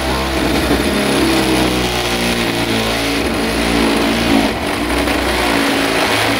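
Electric drill spinning a step drill bit through the sheet-metal roof to cut a 26 mm hole, the motor pitch rising and falling as the bit works, then stopping abruptly at the end.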